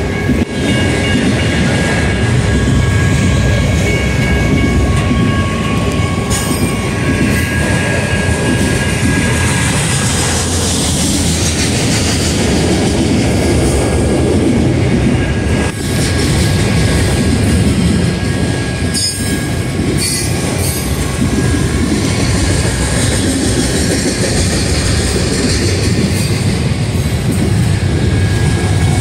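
Freight train of autorack cars rolling past close by: a steady rumble of steel wheels on rail, with a high-pitched wheel squeal that fades out partway through and comes back later, and a few sharp clicks from the wheels near the end.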